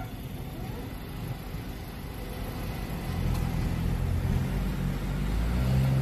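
Cars driving over a level crossing just after the gates lift, with engine and tyre rumble growing louder as the first car comes close near the end.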